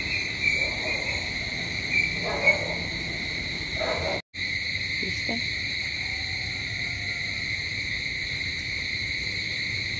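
Steady high-pitched trilling of crickets in the night, with a few faint distant calls over it. The sound cuts out for an instant a little after four seconds in.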